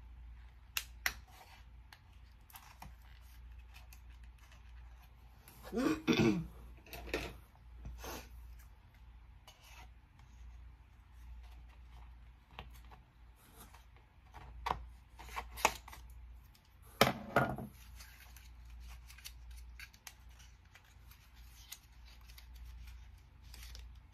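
Cosmetic product packaging being handled and opened by hand: scattered clicks, crinkles and snips, with two louder rustling bursts about six and seventeen seconds in, over a low steady hum.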